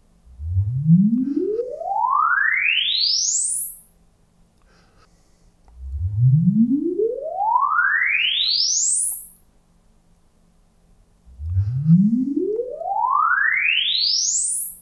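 Dirac Live room-correction measurement: three rising sine sweeps played through the loudspeakers driven by the NAD M10, each one tone gliding smoothly from deep bass up past the top of hearing in about three and a half seconds, with a short pause between sweeps. The sweeps alternate between the left and right speakers.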